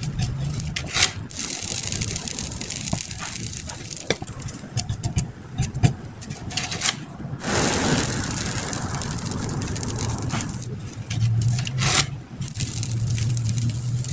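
Batter being brushed and dabbed onto a hot griddle pan for a homemade spring roll wrapper: scratchy scraping strokes with small clicks, over a steady low hum that grows louder after about eleven seconds.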